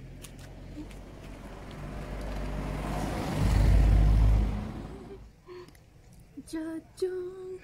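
A car passing by on the road: a rushing noise with a low rumble that builds, peaks about three and a half seconds in, and fades away about a second later.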